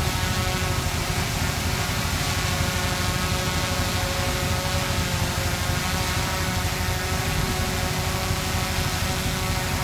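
Diesel engine of heavy earthmoving machinery running steadily at a constant speed.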